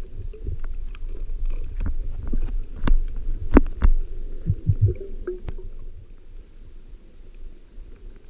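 Underwater rumble and sloshing of wave surge over shallow rocks, heard through an underwater camera, louder in the first half and easing off after about six seconds. Several sharp clicks and knocks come in the middle, followed by a few low thumps.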